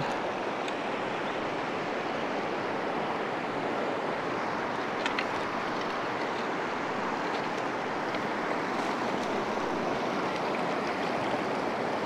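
Fast-flowing river water rushing over a stony bed, a steady even rush. A few faint ticks about five seconds in.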